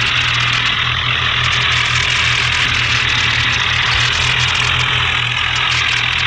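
Heavy vehicle engine running steadily at a low, even throb.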